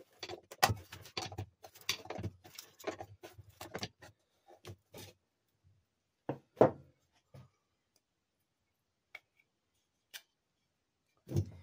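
Rapid metallic clicking and scraping as a screwdriver pries at the jammed drum brake backing plate of a 1970s Arctic Cat Ramrod mini bike's spoked front wheel, which is spinning. After about four seconds this thins to a few separate clicks and knocks as the plate and brake shoes come loose, the loudest knock about two and a half seconds later.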